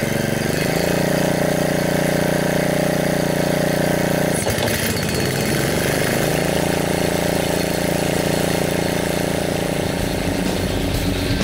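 Engine of a DR pull-behind field and brush mower running steadily with its blades turning and cutting grass, showing that the blade drive works again after a new belt and idler pulley. Its note changes about half a second in and again about four and a half seconds in.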